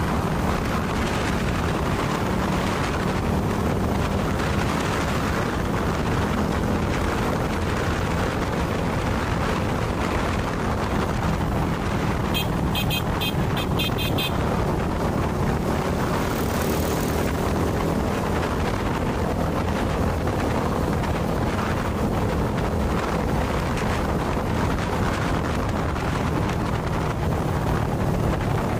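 Wind buffeting the microphone over a motorcycle or scooter engine running steadily on the move. About halfway through, a quick run of high beeps lasts about two seconds.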